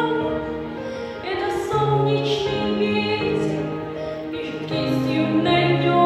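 Music: a slow song with long held sung notes over a steady accompaniment.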